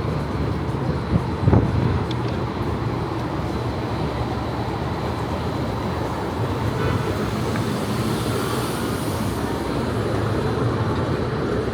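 Steady city street traffic noise, a low rumble of vehicles with a few knocks in the first couple of seconds. A passing vehicle brings up a hiss about eight seconds in.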